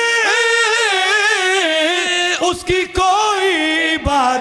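Several men singing a qasida together into a microphone, in long held notes with a wavering pitch, without instruments. A few short low thumps come in the second half.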